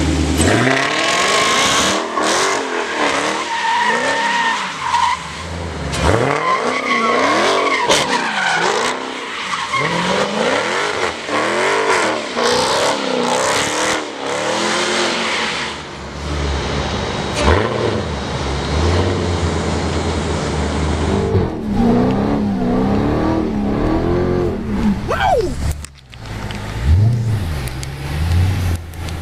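2015 Dodge Charger SRT Hellcat's supercharged 6.2-litre Hemi V8 revving up and down over and over during a burnout, the spinning rear tires squealing. There is a brief break near the end.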